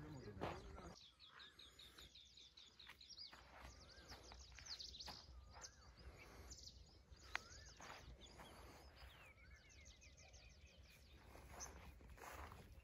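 Several wild birds singing faintly: rapid high trills and repeated short whistled notes that rise and fall, with one sharp tick about seven seconds in. Footsteps on a dirt and gravel path are heard near the start and again near the end.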